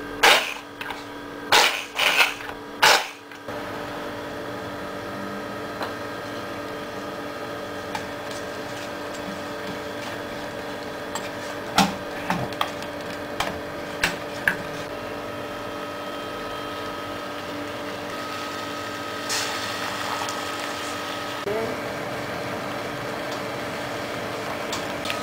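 A hand blender run in a few short, loud bursts in a stainless-steel saucepan of roasted peppers, then a steady hum with a few fixed tones. Over the hum come scattered knocks of a wooden spoon against the pan about twelve to fourteen seconds in.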